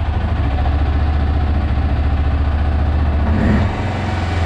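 Arctic Cat Prowler 650 XT side-by-side engine idling steadily with an even low pulsing. Its note shifts briefly about three and a half seconds in.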